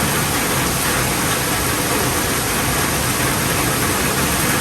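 Steady ambient background noise, a low rumble with an even hiss, picked up by an iPhone 12 Pro Max's built-in microphone.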